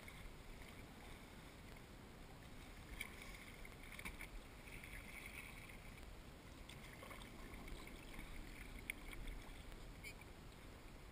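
Faint sounds of a kayak being paddled on calm water: the paddle blade dipping and dripping, with a few soft ticks.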